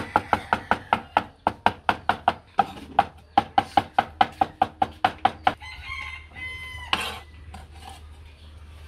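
Cleaver chopping garlic on a wooden chopping board in quick, even strokes, about five a second, which stop about five and a half seconds in. A rooster then crows once.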